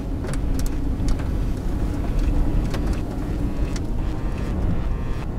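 Steady low rumble of wind and a running vehicle's engine hum, with a few scattered sharp ticks.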